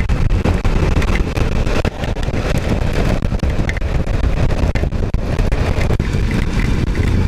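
Wind rushing and buffeting over the microphone of a Suzuki V-Strom motorcycle ridden at speed on a wet road, mixed with the bike's running noise. It is a loud, steady rush, heaviest in the low end, with constant flutter.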